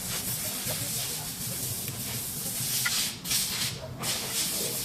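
A strong, steady hiss of spraying or blowing air, broken by two short pauses about three and four seconds in.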